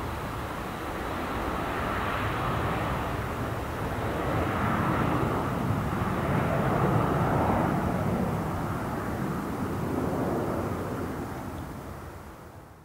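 Four-engined British Aerospace Avro RJ100 jet airliner climbing out just after take-off: a steady rushing jet roar from its Honeywell LF 500-series turbofans. It swells over the first few seconds, with slowly sweeping changes in tone, then fades near the end and cuts off.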